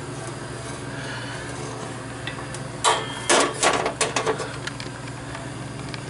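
Sheet-metal furnace cabinet being handled: a quick run of clanks and knocks about three seconds in, over a steady low hum.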